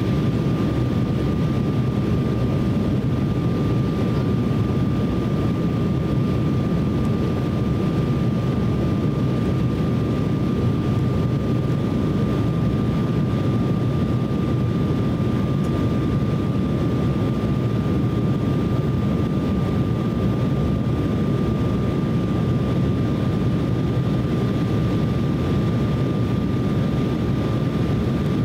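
Steady cabin noise inside an Embraer E170 airliner in flight: the low rush of airflow and the GE CF34-8E turbofan engines, with a thin steady whine above it.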